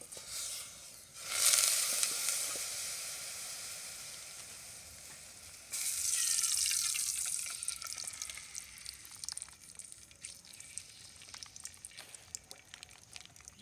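Cooking oil sizzling as it is poured in a stream into a hot aluminium pot on a wood fire. A sharp hiss comes in about a second in and slowly fades, a second burst of sizzle starts about six seconds in as the oil hits the hot metal, and it settles into scattered pops and crackles near the end.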